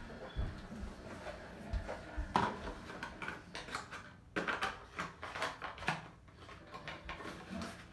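Handling noises: a scatter of light clicks, taps and rustles as a small plastic container and its cardboard box are handled, busiest in the middle of the stretch.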